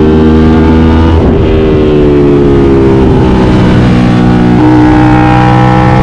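Aprilia RS 660's parallel-twin engine through an SC Project CR-T exhaust, heard on board while riding, pulling under load with a steady, slowly falling note. The note breaks briefly about a second in and steps up in pitch a little before the end.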